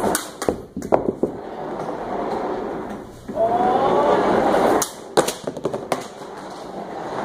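Scooter board's caster wheels rolling on a tiled floor, with a cluster of sharp knocks and clatters in the first second and again about five seconds in.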